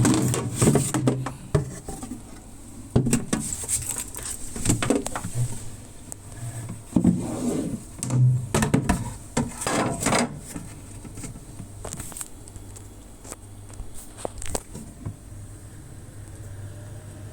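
Irregular knocks, clatters and scrapes of a two-door refrigerator's doors and plastic fittings being handled, dying away in the last few seconds, over a steady low hum.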